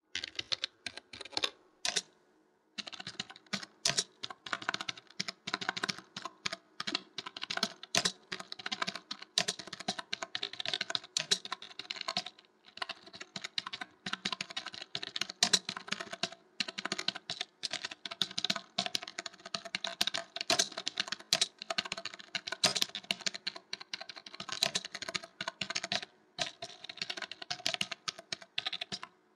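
Typing on a computer keyboard: a fast, irregular run of key clicks with a few short pauses, the first about two seconds in.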